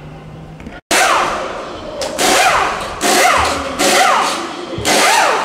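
Pneumatic wheel gun (air impact wrench) working a race car's wheel nut in a tyre change: about five loud, short bursts, each with a falling whine.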